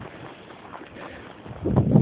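Faint footsteps in snow, then wind buffeting the microphone, rising sharply near the end.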